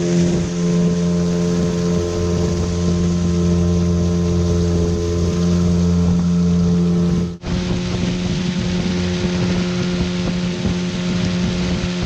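Outboard motor of a motorized canoe running steadily at speed, a constant hum, with water spray rushing along the hull. The sound breaks off for an instant about seven seconds in, then carries on as before.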